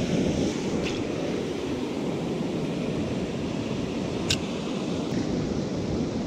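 Ocean surf washing through the shallows with wind on the microphone, a steady rushing noise. A short sharp click a little past four seconds in.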